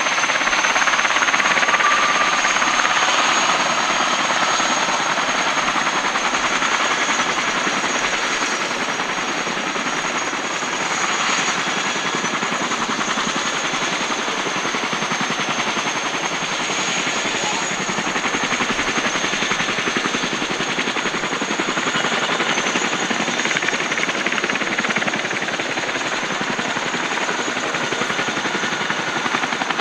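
A CH-47J Chinook's twin turboshaft engines running with both tandem rotors turning while it sits on the ground: a steady, loud mix of high turbine whine and rapid rotor-blade beating.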